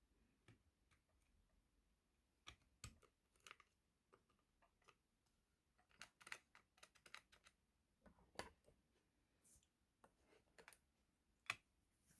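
Faint, irregular clicks and taps from hands working on a laptop, with a quick cluster of them around the middle and one sharper click near the end.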